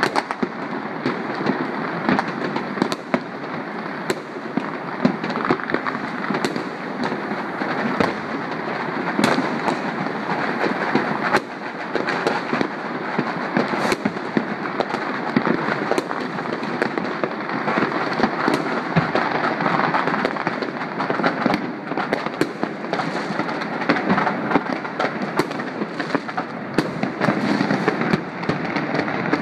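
Many fireworks and firecrackers going off at once across a city: a continuous dense crackling with frequent sharper bangs from aerial shells.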